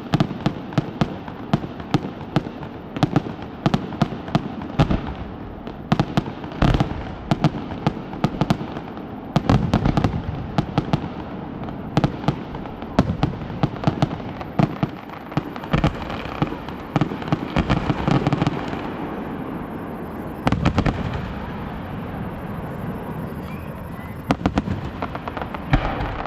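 Fireworks display: a rapid, continuous barrage of sharp bangs and crackles from aerial shells. It thins out for a few seconds about two-thirds of the way through, then picks up again near the end.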